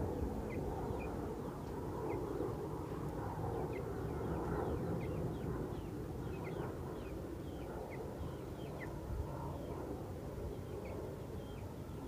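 Small birds chirping: short high chirps, roughly one a second, over a steady low background rumble.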